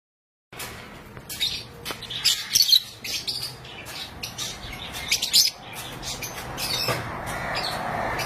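Lovebirds chirping and squawking in a fast run of short, sharp, high calls that starts about half a second in, settling into steadier chatter near the end.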